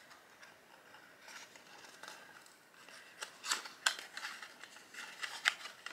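Small cardboard skincare box being opened by hand: the tuck flap is worked loose, giving a few sharp clicks and short crinkles of card and paper, the loudest a little past the middle and near the end.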